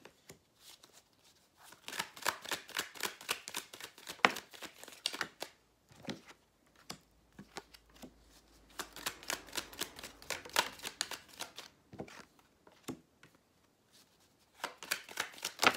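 A deck of oracle cards shuffled by hand: three bouts of quick papery card flicking with short pauses between, as cards are dealt out face down.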